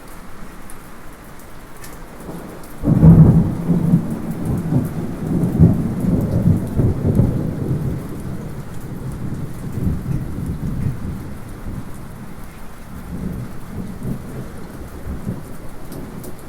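Steady light rain with a distant thunderclap breaking about three seconds in, then rolling on in a long low rumble that swells unevenly and slowly fades. Faint drip ticks sound through the rain.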